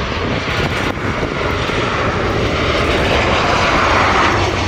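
Loud engine roar of a passing aircraft, swelling toward the end.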